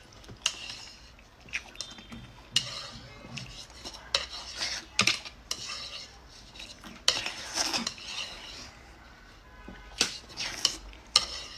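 Eating from a bowl of noodles: utensils clicking against the bowl while the noodles are stirred and picked up, with short wet eating noises in between.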